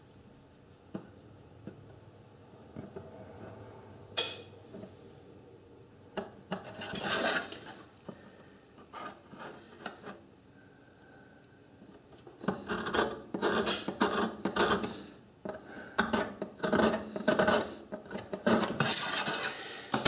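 A metal scriber scratching layout lines into a steel baking pan, with the steel rule clinking against the metal, while hole centres are marked out. A few light clicks at first, then scattered scratches, and from about twelve seconds in a fast run of back-and-forth scraping strokes.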